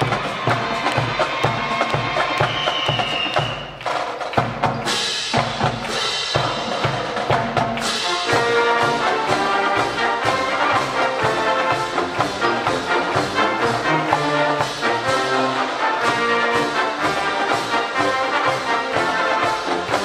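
Marching band playing brass (trumpets, trombones and sousaphones) over a driving drum beat. The music dips briefly about four seconds in, and full held brass chords come in from about eight seconds.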